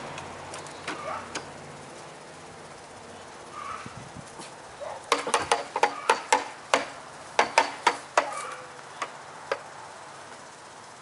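A quick, irregular run of about a dozen sharp clacks over some four seconds, starting about halfway through, from a long-handled pooper scooper rattling as it is carried past.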